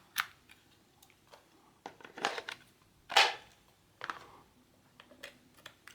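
Small clicks and handling rustles of a USB tester and cable being plugged into a cordless battery adapter's USB port, with a louder rustle about three seconds in.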